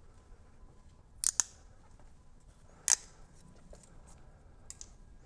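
A few short, sharp clicks from small parts being handled while the antenna is mounted: a quick double click about a second in, a single louder click near three seconds, then a couple of faint ticks, over quiet room tone.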